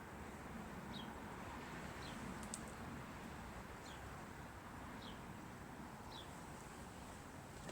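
Small bird chirping: short, high, falling chirps, roughly one a second, over a faint steady hiss, with a single sharp click about two and a half seconds in.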